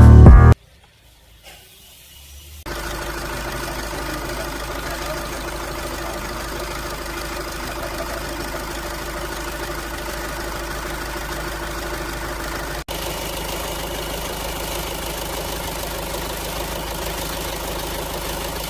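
VW Passat engine idling steadily with a knocking sound.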